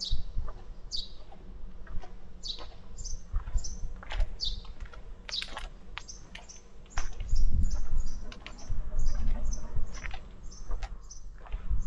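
Small songbirds chirping: many short, sharp high calls, some in quick repeated runs and some sweeping down. A low rumble swells underneath from about halfway through.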